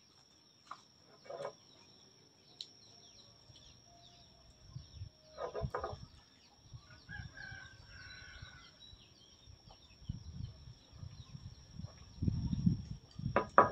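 Chickens clucking with a rooster crowing in the background, heard as scattered short calls over a faint steady high whine. Near the end come louder low noises of someone drinking from a cup.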